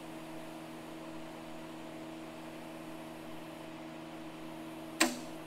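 A switched-on MIG wire welder humming steadily at idle, with a few fixed tones. A single sharp click comes near the end.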